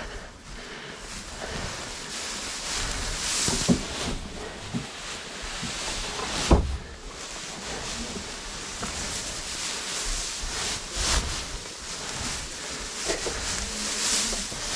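Dry hay rustling and brushing close against the microphone as an armful is carried, with a few knocks along the way.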